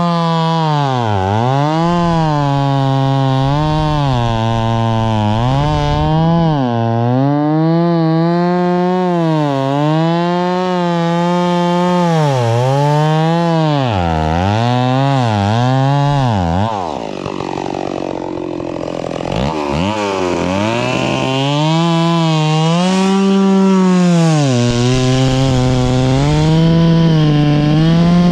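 Stihl two-stroke chainsaw cutting through an oak log at full throttle. Its pitch dips and recovers again and again as the chain bites and frees. About two-thirds of the way through it drops back briefly, then comes up to speed and cuts again.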